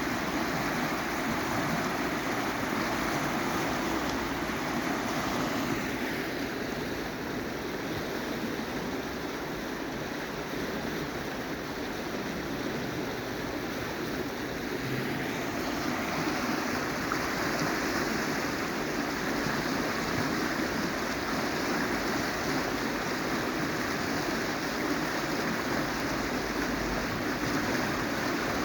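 Steady rush of moving water, easing off for several seconds partway through and then building again.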